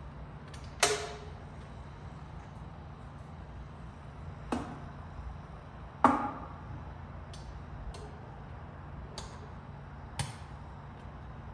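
Sharp metal clanks and knocks at the grill's ash box as cherry wood chunks are put in and the sheet-metal door is handled. There are four loud knocks and a few lighter ticks, over a low steady hum.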